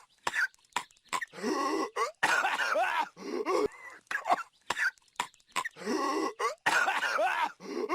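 Cartoon voice of Patrick Star coughing and hacking in a repeating loop: two long, rough coughing fits, one about two seconds in and one about six and a half seconds in, with short sharp coughs between them.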